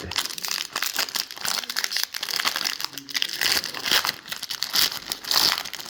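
Trading-card pack wrapper being torn open and crinkled by hand: a run of quick crackles and rustles.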